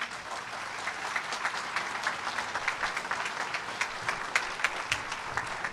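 A large audience applauding: many hands clapping together, starting at once and holding steady.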